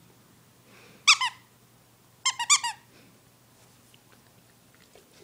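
Squeaker in a plush stuffed toy squeezed by a Newfoundland puppy's bite. Two squeaks about a second in, then a quick run of about four more, each dipping in pitch.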